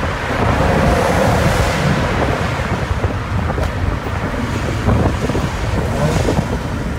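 Steady low rumble of a modified 2006 Mitsubishi Lancer Evolution IX MR on the move, heard from inside the cabin: its turbocharged 2.0-litre 4G63 engine mixed with road and wind noise.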